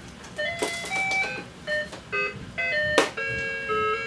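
Electronic toy playing a simple tune in plain beeping notes, one note after another. A sharp click about three seconds in.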